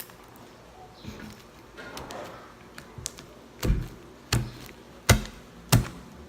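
Slime being pressed and squeezed, soft squishing and then four loud, sharp pops of its trapped air bubbles in the second half, about two-thirds of a second apart.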